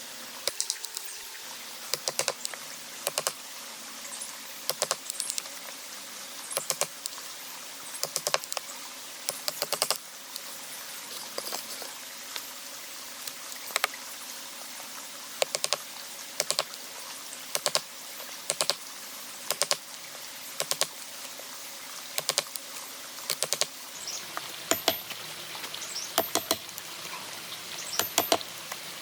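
Light, sharp wooden clicks and taps from hand tools working a board, coming in small irregular clusters every second or two.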